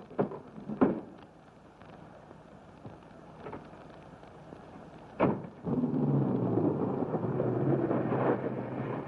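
A few knocks, a sharp bang about five seconds in, then an early-1930s car's engine running with a steady rough rumble as the car drives off.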